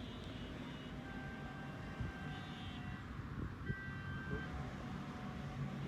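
Steady vehicle noise, a car engine running, with two short knocks.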